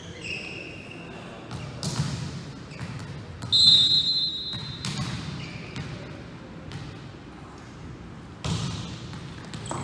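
A referee's whistle is blown once about three and a half seconds in: one steady shrill blast lasting just over a second, the signal to serve in a volleyball match. A few dull thuds of a ball bouncing on the gym floor come before and after it.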